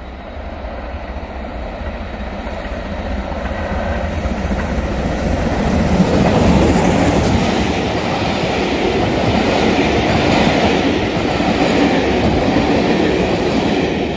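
A train hauled by the LNER B1 4-6-0 steam locomotive 61306 Mayflower passing close by. It grows louder as it approaches, is loudest from about six seconds in, then carries on as a steady rumble and clatter of the coaches' wheels over the rail joints.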